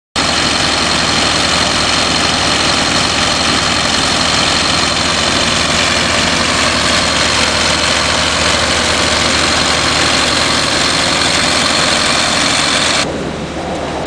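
Industrial vacuum truck running, its engine and vacuum pump pulling air through a large suction hose laid into a conveyor pit: a loud, steady rushing noise with a high whine over it. It drops away abruptly about a second before the end.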